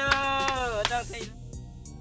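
Elephant trumpeting: one brassy call of about a second, its pitch dropping slightly as it ends, then much fainter.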